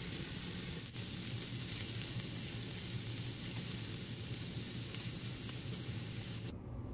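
King oyster and enoki mushrooms sizzling in oil in a frying pan, a steady frying hiss over a low hum, cutting off sharply near the end.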